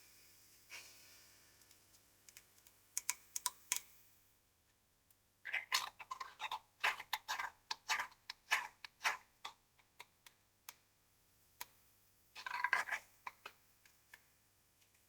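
Lung auscultation recording through a stethoscope: crackling, with groups of short, sharp clicks. There is a brief scatter at first, then a dense run lasting about four seconds, then another dense burst near the end, with quiet in between.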